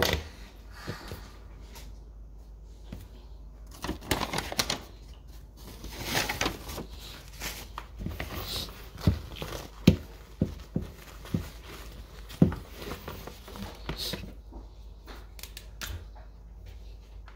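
Cutlery clicking and scraping on plates and dishes, a busy run of small clinks and knocks with a few sharper, louder knocks in the middle.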